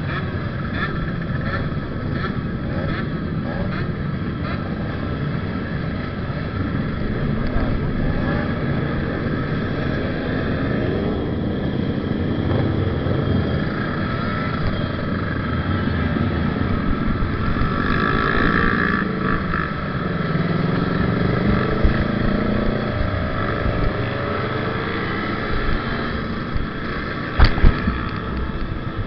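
A pack of two-stroke motorcycles running together, engines idling and revving with pitch that rises and falls, the rider's own Kawasaki Ninja RR among them. A couple of sharp pops come near the end.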